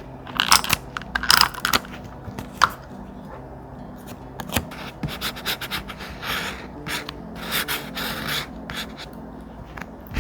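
Thick paper being handled by hand: a string of short rubbing and scraping strokes, several in the first two seconds and more from about four to nine seconds in.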